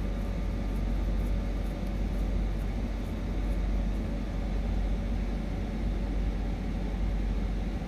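Steady low rumble of a running engine, even throughout, with no distinct knocks or clicks.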